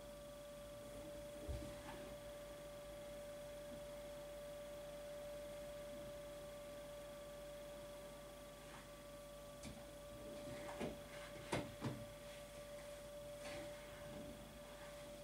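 A faint, steady pitched hum throughout, with a soft thump near the start and a cluster of short rustles and taps later on as a kitten in a fleece blanket stretches and is handled.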